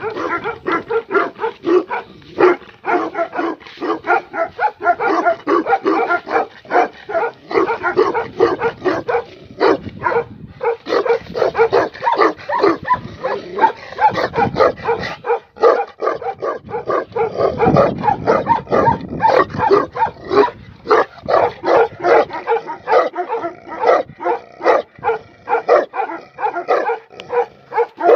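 Tibetan mastiffs barking in a rapid, unbroken run of barks, several a second.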